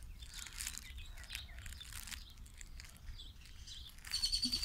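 German shepherd puppies mouthing and chewing toys and a blanket: faint rustling and small clicks, with a brief rapid high-pitched chirping near the end.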